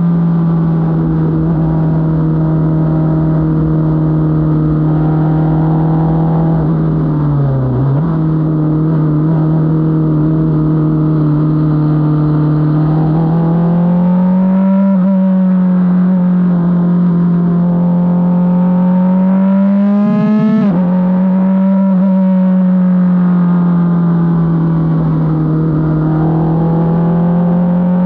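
Onboard sound of an F4 race car's four-cylinder engine running hard at fairly steady revs, its pitch swelling and easing through the corners. The revs drop briefly about eight seconds in, and there is a quick rev rise about twenty seconds in. Wind and road noise run underneath.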